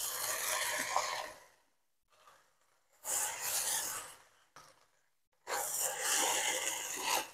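Rice vermicelli being stir-fried in a non-stick wok: a spatula and wooden spoon toss and scrape the noodles against the pan, with sizzling, in three bursts of a second or two each, the last one near the end.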